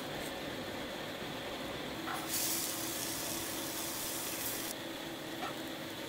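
Coarse salt poured over whole fish for a salt crust, a high, even hiss that starts about two seconds in and stops sharply about two seconds later, over a steady kitchen hum.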